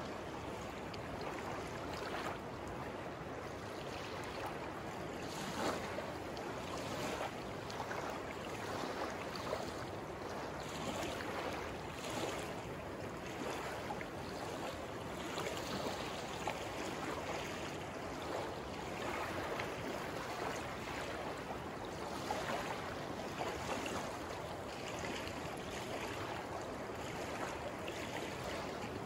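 Choppy river water rushing and lapping against a sandy shore, with small waves splashing irregularly at the water's edge.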